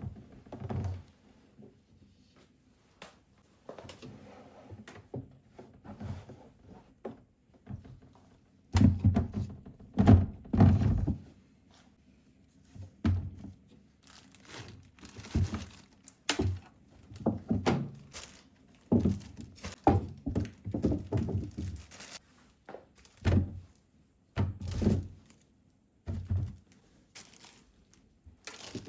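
Irregular thuds and knocks of household objects being handled and set down, with a few louder heavy bumps about nine to eleven seconds in, and light rustling between.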